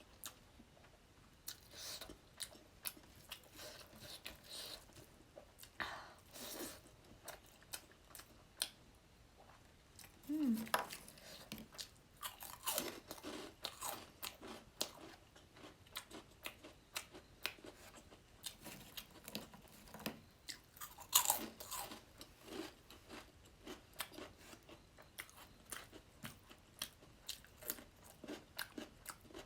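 Close-miked chewing and crunching of food, a steady run of small wet smacks and crisp clicks at an uneven pace. Louder bites stand out about ten seconds in and again around twenty-one seconds.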